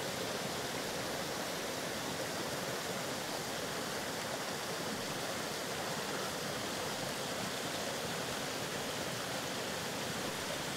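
Small waterfall on a rocky upland beck: water rushing and splashing over the rocks in a steady, even roar.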